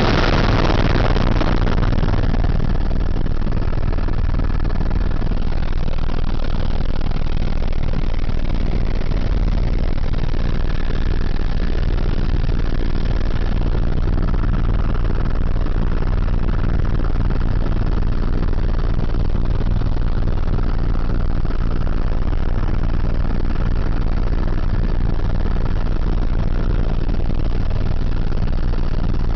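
Helicopter in flight heard from inside the cabin: a steady, loud drone of the rotor and engine, heaviest in the deep bass, with a faint high whine that comes and goes.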